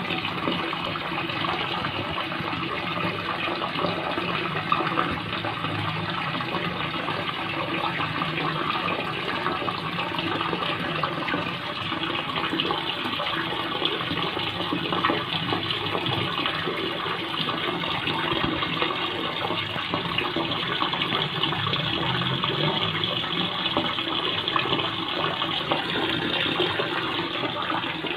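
Aquarium water rushing and bubbling steadily, the sound of a tank's filter outflow and aeration heard close to the glass.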